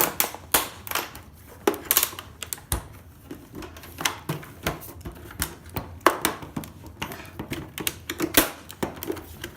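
Irregular sharp clicks and knocks of a set-top box's metal parts and tools being handled and set down during dismantling.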